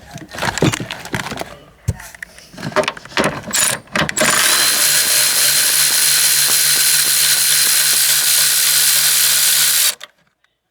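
Irregular clicks and metal knocks of tools being worked, then a cordless power tool runs steadily with a high whine for about six seconds and stops suddenly.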